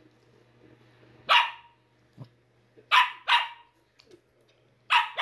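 A small fluffy dog barking in play: four short high barks, the middle two close together.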